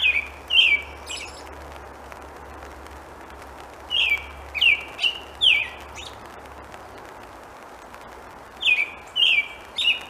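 American robin singing: three bouts of short whistled phrases, each sliding down in pitch. The bouts come right at the start, a few seconds in, and near the end.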